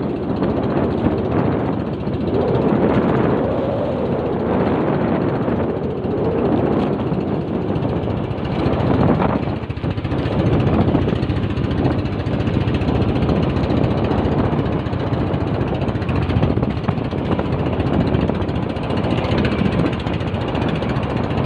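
Loud, steady rumbling and rushing noise, swelling and easing unevenly, aboard a small fishing boat out in strong monsoon wind and waves.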